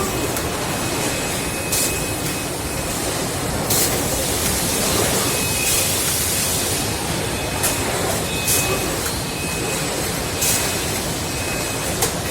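Steady machinery din from a chest freezer production line, broken by short high hisses every second or two, one lasting about a second near the middle.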